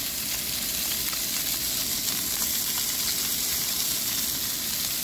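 Fish fillets sizzling steadily in a ridged grill pan on a camping gas stove.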